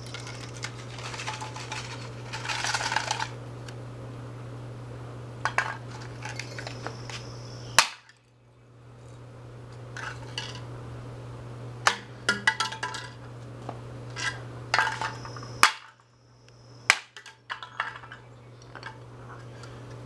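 Hard plastic pieces clicking, clinking and clattering on a concrete sidewalk as they are handled and dropped, with a sharp snap about eight seconds in. All of this sits over a steady low hum that cuts out briefly twice.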